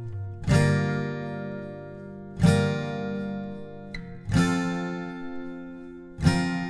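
Background music: an acoustic guitar strumming slow chords, four strums about two seconds apart, each left to ring out and fade.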